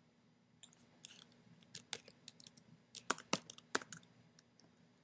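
Computer keyboard typing: a quick run of irregular key clicks, a few louder taps near the middle.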